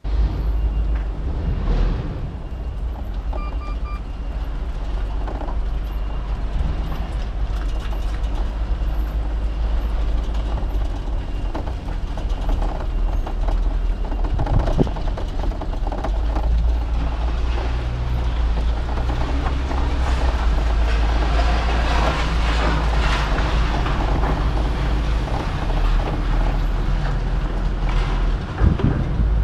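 A vehicle on the move: a steady low engine and road rumble with scattered rattles and knocks, louder and rougher for a while in the middle.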